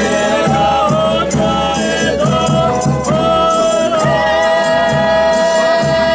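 Folia de Reis group singing a verse in several voices over strummed acoustic guitars, the voices settling about four seconds in onto one long held chord.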